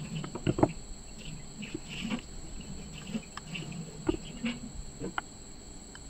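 Soft knocks and taps of chapati dough being folded and pressed on a wooden board, the loudest a quick cluster about half a second in. Under them runs a steady high chirring of insects.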